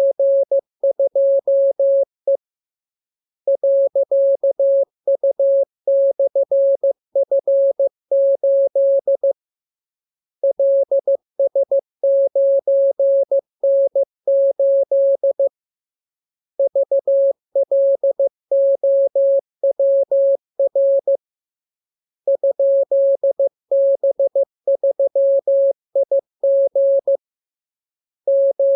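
Morse code (CW) practice tone: a single steady beep keyed on and off into dots and dashes, sending letters and figures. It comes in runs of about six seconds with pauses of about a second between them.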